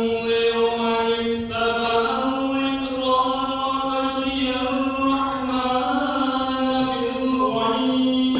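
A man's voice chanting a slow melodic recitation, holding one long drawn-out phrase that steps up in pitch about two seconds in and ends near the end.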